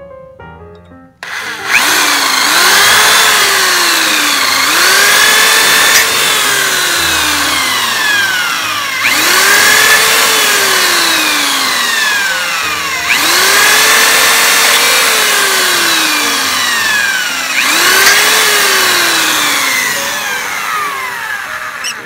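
Electric drill boring into a microwave magnetron's sheet-metal filter box. The motor's whine climbs quickly and then sags slowly as the bit bites, about five times in a row.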